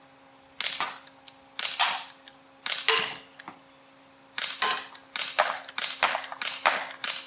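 Gamo P-430 CO2 pellet pistol firing semi-automatic: three sharp shots about a second apart, then after a pause a quick string of shots at about three a second.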